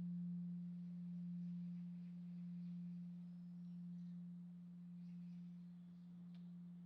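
Large Korean bronze Buddhist temple bell (beomjong) dying away after a strike: a single low hum that swells and fades in slow, even pulses as it decays.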